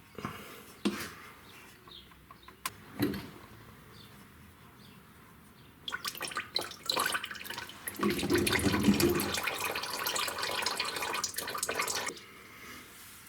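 Liquid running for about six seconds, loudest in the middle, after a few clicks and knocks.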